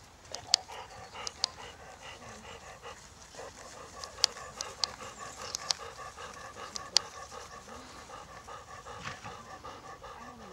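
Quick, steady panting of an animal close to the microphone, with several sharp clicks in the first part that stand out above it.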